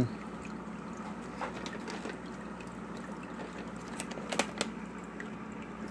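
Aqueon hang-on-back aquarium filter running: a steady trickle and splash of water pouring from its outflow into the tank, with the surface bubbling. A few faint clicks about four seconds in.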